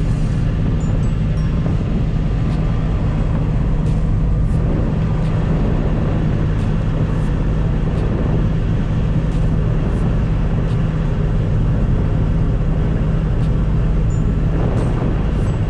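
Heavy harvest machinery's diesel engine running steadily at constant speed, with a deep, even hum.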